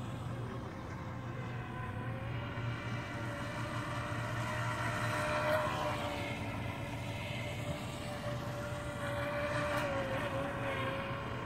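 Feilun FT012 RC speedboat's brushless motor whining steadily at speed, the pitch wavering slightly. It gets louder as the boat passes close, once about halfway through and again near the end.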